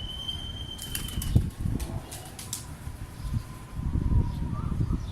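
Pigeons flapping their wings in a few short bursts, with some sharp clicks in between.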